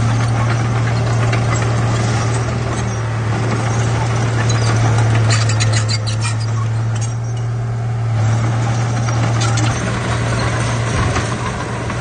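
Komatsu D31P bulldozer's diesel engine running steadily under load, with the rattle and clank of its steel tracks and of rocks as the blade pushes a pile of stony soil.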